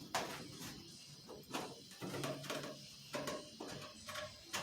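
Faint, irregular clicks and short scrapes of a 1/4-inch drill bit used as a deburring tool on the drilled rivet holes of a spar.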